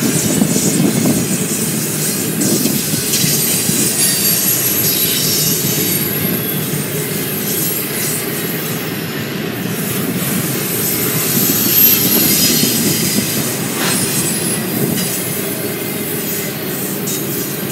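Double-stack intermodal well cars rolling past: a steady rumble of steel wheels on the rails, with thin high-pitched wheel squeals coming and going.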